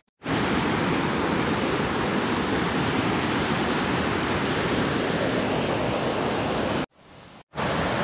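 Waterfall rushing over rocks close by: a steady, even water noise, briefly dropping away for about half a second around seven seconds in.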